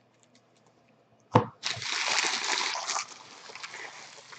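Trading cards and pack wrappers being handled on a table: a sharp knock, then about a second and a half of loud crinkly rustling that dies down to a softer rustle.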